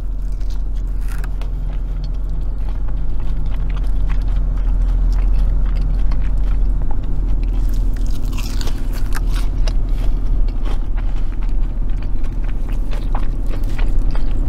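Close-up biting into and chewing fried macaroni-and-cheese balls, with many small crunching clicks from the breaded crust that come thicker in the second half, over a steady low hum.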